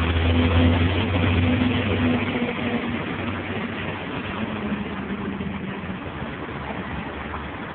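Street traffic on a busy city boulevard, with a nearby car engine humming steadily low that fades away after about three seconds, over a constant wash of traffic noise.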